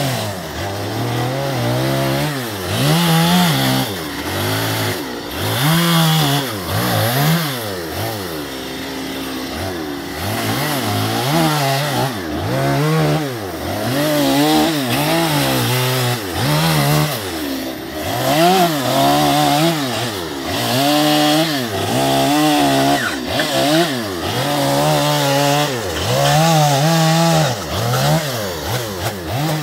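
Two-stroke chainsaw revving up and dropping back over and over, about once a second, as it makes short carving cuts into a western red cedar log.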